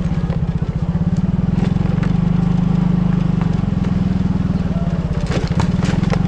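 Motor scooter engine running steadily at low speed while the scooter rolls along a rough dirt lane, with a few sharp clicks near the end.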